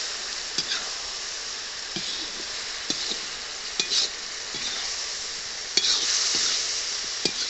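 Chicken pieces sizzling in a black kadai as they are bhuna-fried in spices, with a steady frying hiss. A perforated metal ladle stirs them, scraping and knocking against the pan about once a second.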